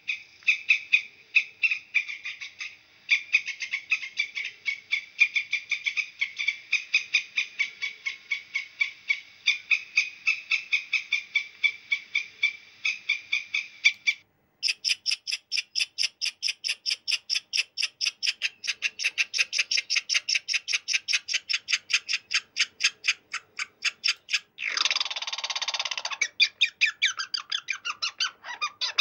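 Squirrels chattering: a long run of sharp, quick calls at about five a second. About halfway through it changes to a faster, higher chatter, with a harsher rasping burst near the end.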